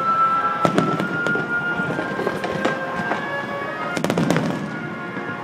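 Aerial fireworks bursting and crackling in a string of sharp bangs, with a quick cluster of several bangs about four seconds in, over music playing in the background.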